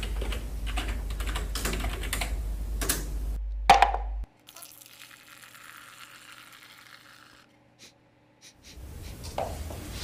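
Typing on a computer keyboard, a quick run of keystrokes for about three and a half seconds ending in one louder clack. Then a much fainter, steady machine sound as the drink machine dispenses into a paper cup, fading out a few seconds later.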